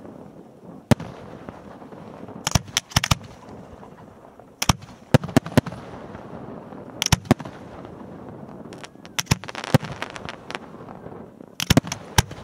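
Aerial firework shells bursting in a display: sharp bangs, some single and some in quick clusters of two to four, coming every second or two, with a constant lower noise between them.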